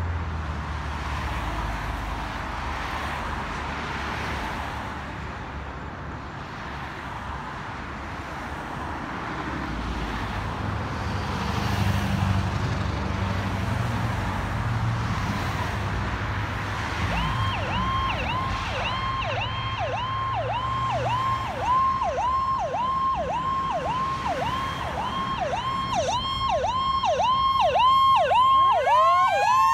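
Road traffic and a low engine rumble, then, from about halfway through, a fire truck's electronic warble siren going up and down about two or three times a second. Near the end a Federal Q mechanical siren starts to wind up, rising in pitch.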